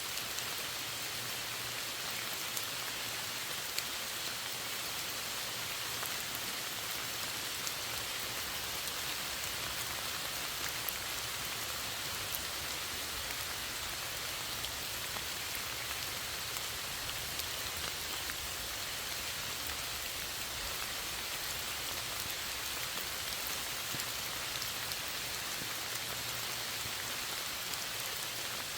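Steady rain falling, an even hiss of drops with scattered small individual drop taps.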